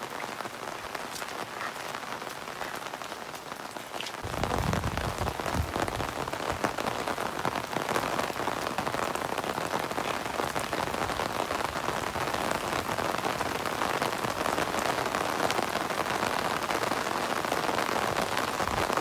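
Heavy rain falling steadily, an even hiss that turns louder and fuller about four seconds in.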